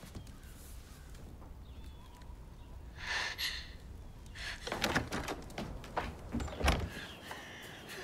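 Knocks and thuds of a wooden door being opened and shut, the loudest a low thud near the end, with a short rustle about three seconds in.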